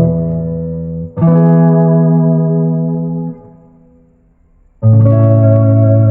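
Guitar chords strummed and left to ring: a chord struck about a second in rings for about two seconds and is cut off, then after a short pause another chord is struck near the end.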